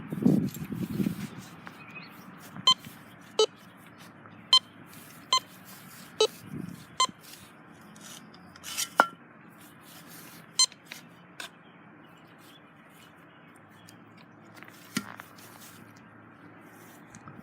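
Metal detector sounding a series of short, sharp beeps at irregular intervals as the coil sweeps over targets. A brief low rumble of handling noise comes at the start.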